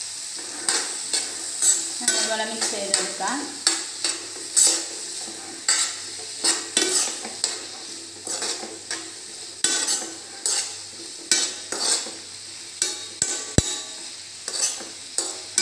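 Food frying and sizzling in a pan while it is stirred, with a cooking utensil scraping and knocking against the pan about once or twice a second in an irregular rhythm.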